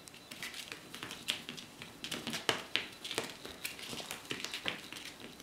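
Kittens scampering and pouncing on a hard floor: many quick, irregular light taps and scratches of paws and claws as they bat at a feather wand toy.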